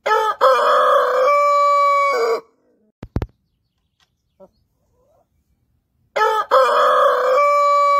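A Brahma rooster crowing twice: one crow of about two and a half seconds at the start, and a second beginning about six seconds in. Each rises through a few short notes into a long held note. A short knock sounds between the two crows.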